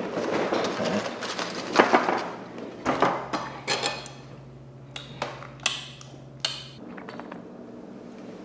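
Tableware sounds at a meal: a rustle at first, then scattered sharp clinks and taps of cutlery and dishes on a glass tabletop, over a faint low hum.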